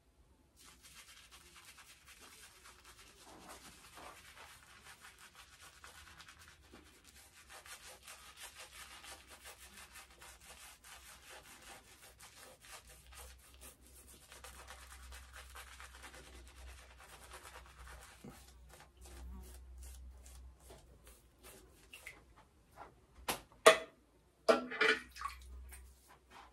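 Shaving brush working lather onto a bearded face: a steady scratchy swishing of bristles against skin and stubble. Near the end, a few louder sharp knocks.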